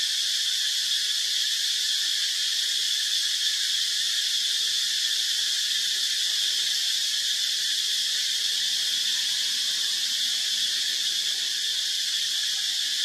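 Steady chorus of insects in the forest canopy: a dense, unbroken high-pitched hiss with a ringing band in it, holding an even level throughout.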